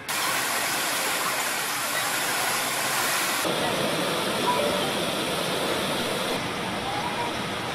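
Brahmaputra floodwater rushing past the base of a statue, a steady rushing noise that changes abruptly about three and a half seconds in and again a little after six seconds.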